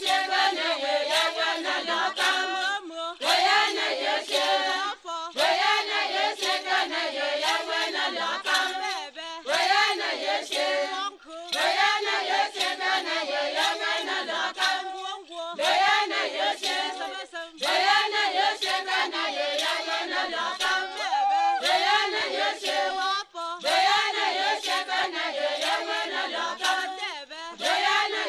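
A choir singing, phrase after phrase with short breaks between them.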